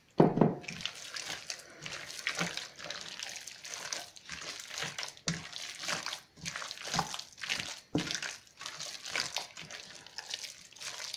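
Hands kneading and squeezing wet pork-and-fat sausage mince in a stainless steel pot: irregular wet squelching and squishing as the mince is beaten to bind it. A heavier thump comes right at the start.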